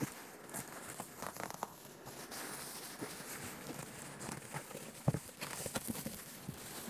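Plastic wrapping around a cardboard box being cut with scissors and pulled apart, giving irregular crinkling and short snipping clicks, the sharpest about five seconds in.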